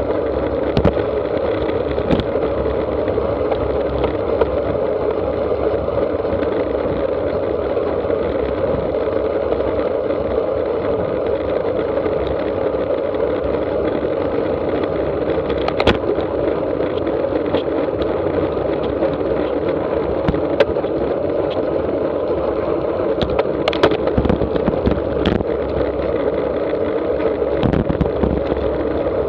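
Steady wind rush on the microphone and tyre hum from a road bike riding at 20 to 30 mph in a pace line, with a few sharp clicks scattered through.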